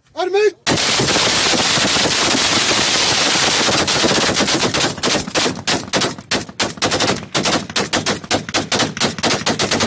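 A shouted command to fire, then several Kalashnikov-pattern assault rifles fired together into the air as a salute. The shots come in a dense unbroken stream, and after about four seconds they break up into ragged, separate shots that thin out.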